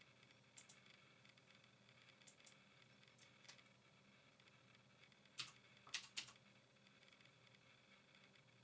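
Near silence broken by faint computer keyboard clicks: a few scattered single clicks, then a quick run of four keystrokes a little past halfway as a search is typed into the menu.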